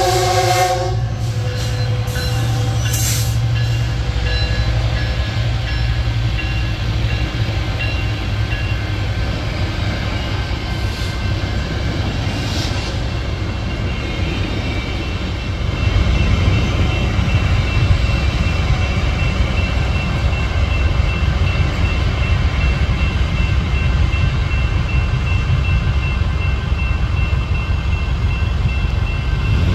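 Metrolink commuter train's horn cutting off about a second in, then the steady rumble and clatter of bilevel passenger cars rolling past, louder from about halfway through. A grade-crossing bell rings faintly and repeatedly under the rumble.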